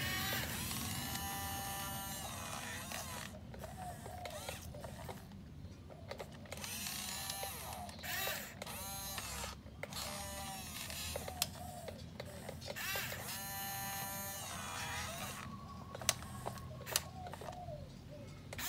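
Yigong remote-control toy excavator's small electric gear motors whining in repeated bursts as the cab swings and the boom moves. Each burst rises in pitch as a motor spins up and falls as it stops, with a few sharp clicks near the end.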